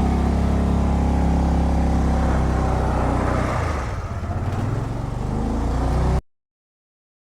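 Kawasaki Mule utility vehicle's engine running steadily under throttle through a donut, its note dipping about three and a half seconds in and then climbing again. The sound cuts off abruptly about six seconds in.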